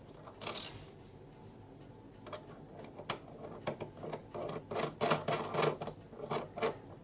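Light, irregular metal clicks and taps from small steel parts being handled on a mini lathe's quick change tool post, one about half a second in and a denser run in the second half.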